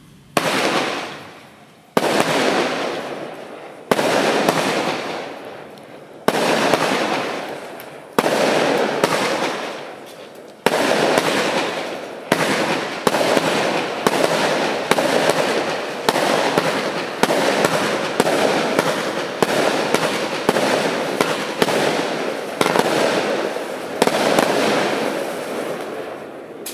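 A 20-shot firework cake firing its shots in sequence, each sharp report trailing off over a second or two. The shots come about every two seconds at first, then quicken to more than one a second from about halfway through.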